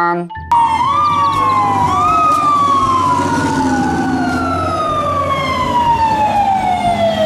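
Fire truck siren wailing. Its pitch rises quickly a couple of times, then falls slowly and steadily in overlapping sweeps over a low, steady rumble.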